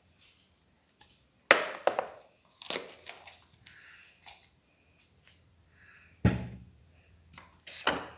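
Sharp kitchen knocks and clatter: salt is spooned into a steel pressure cooker pot. There is a cluster of knocks about a second and a half in, and one heavier knock about six seconds in.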